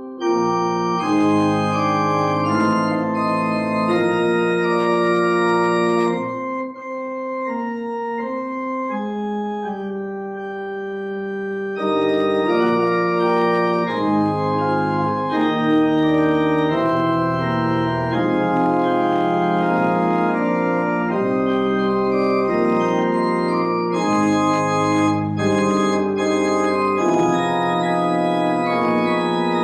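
Pipe organ playing a prelude of sustained chords. About six seconds in it drops to a softer, thinner passage, and about twelve seconds in full chords return.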